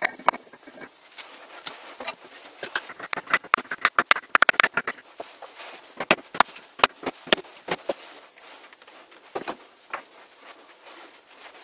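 Steel parts of a three-jaw lathe chuck being fitted back into the chuck body: a run of light metallic clicks and clinks, densest a few seconds in. A handful of sharper taps from a brass rod on the parts follow about six to seven seconds in.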